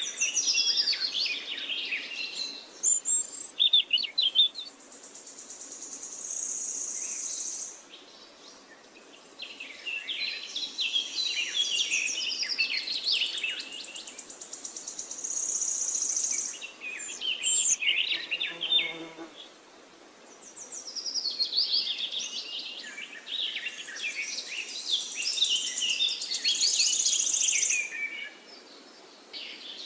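Many small birds chirping and singing in bouts of several seconds with short lulls between, over stretches of a high, steady buzz.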